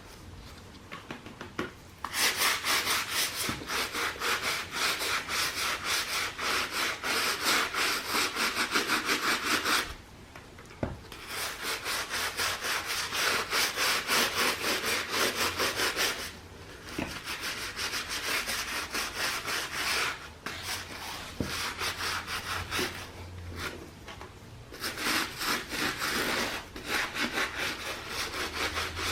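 Rapid back-and-forth rubbing or scrubbing on a sneaker, done by hand. It comes in bouts of several seconds: the first starts about two seconds in and runs for about eight seconds, then shorter bouts follow with brief pauses between them.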